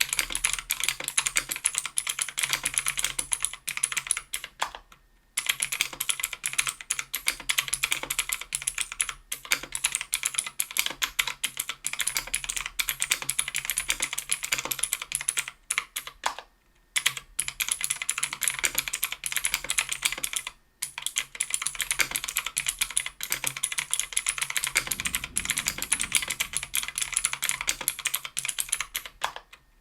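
Steady fast typing on a mechanical keyboard: a KBDfans Tofu 60% aluminum case and plate with stock NovelKeys x Kailh Pro Heavy Sage 95g switches and GMK keycaps, a rapid run of key clacks. It breaks off briefly three times, about five, seventeen and twenty-one seconds in.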